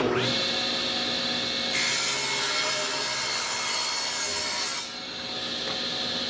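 Stationary power saw running and cutting through wood: a steady machine whine, with the louder hiss of the blade in the wood from about two seconds in until about five seconds in.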